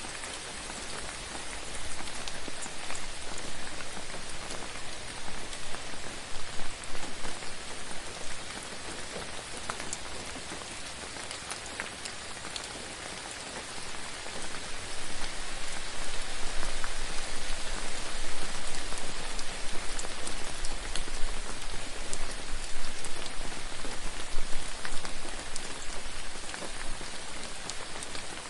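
Splashing water: a steady dense hiss full of small drip-and-splash sounds, growing louder about halfway through.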